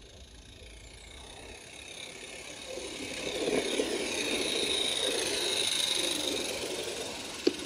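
Miniature live-steam locomotive and its coaches running out of a tunnel and past on garden-railway track, growing louder as the train nears. Two sharp clicks come near the end.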